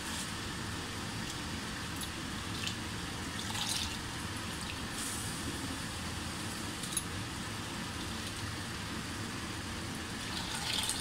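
Raw rice being washed by hand in a large steel bowl of water: splashing and sloshing as the hands scoop and rub the grains, in a few short bursts over a steady background noise.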